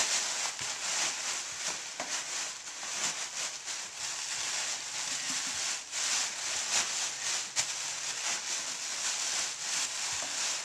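Plastic bags of recycled packing material rustling and crinkling continuously as they are stuffed and pressed down by hand into a wooden crate.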